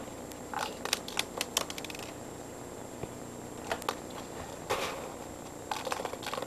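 Plastic airsoft BBs clicking and rattling as they are dropped into a small plastic vending-machine capsule, in irregular bursts of quick clicks with short pauses between.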